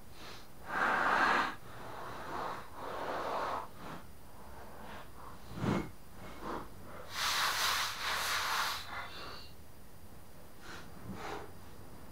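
Aerosol spray can hissing in several short bursts, the longest and loudest about seven seconds in. A single short knock comes a little before then.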